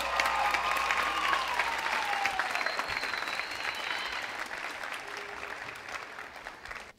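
Audience applauding and cheering, with high whoops and screams over the clapping in the first couple of seconds. The applause slowly dies down and cuts off at the end.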